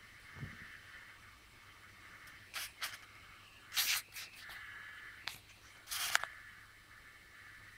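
A few short, hissy rustles and scrapes, in clusters between about two and a half and six seconds in, over a faint steady hiss, with a soft low thud near the start: handling noise.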